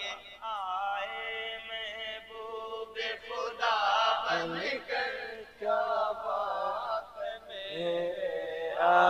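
Male voices singing a naat unaccompanied, in a slow chant-like melody with long held notes.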